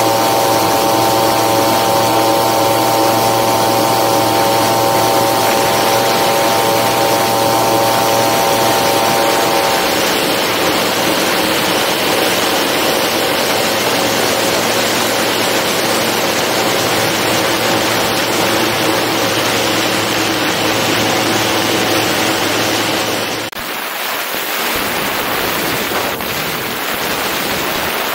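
Storch STOL light aircraft's engine and propeller running steadily at high power through the take-off run and climb-out, with wind rushing over the wing-strut-mounted microphone. Near the end the engine tone drops away, leaving mostly rushing wind.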